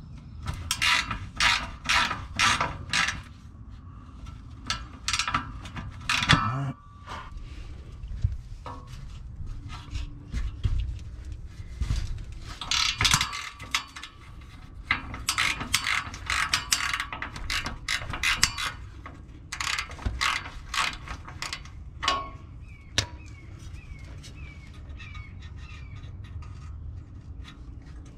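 Hand ratchet wrench clicking in repeated quick runs with pauses between, as it backs off the tight exhaust mid-pipe flange nuts under a car.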